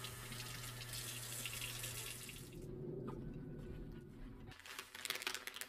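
Water running from a tap into a sink over hands, stopping about two and a half seconds in. A few light clicks and rustles near the end.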